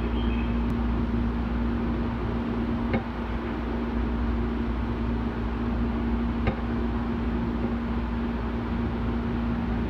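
Steady hum inside a Semboku Rapid Railway 7000 series train car standing still at a platform: the car's onboard equipment running with a steady low tone under a low rumble, and two faint clicks, about three and six and a half seconds in.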